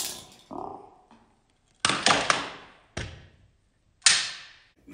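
A plastic toy car launcher snapping as it fires a small toy car, which clatters against a cabinet door and bounces back: three sharp clacks about a second apart, the first a short rattle of several hits.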